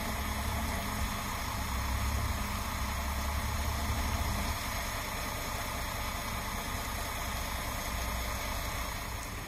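Diesel engine of a parked vacuum tanker truck running steadily at idle, a deep rumble that eases slightly about halfway through.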